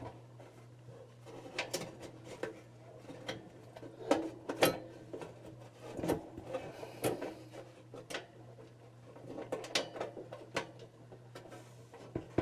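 Irregular clicks, taps and light clatters of the heater's metal housing, wiring and fan motor being handled and fitted back together, over a steady low hum.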